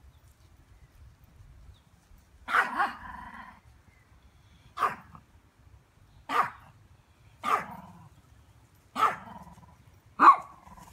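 A dog barking six times, single sharp barks spaced a second or so apart, starting about two and a half seconds in.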